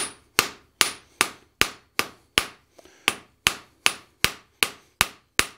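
Hand hammer striking red-hot steel on the horn of an anvil, drawing the bar out to a taper: a steady run of blows about two and a half a second, one lighter blow near the middle.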